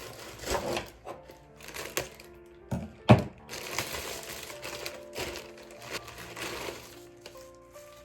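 Soft piano background music over the crinkling and tearing of a plastic mail parcel being opened by hand, with a sharp crack about three seconds in.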